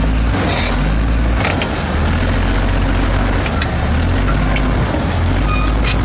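Komatsu D65P bulldozer's diesel engine running under load as it pushes rock and dirt with its blade, a steady low rumble with occasional short metallic squeaks and clanks.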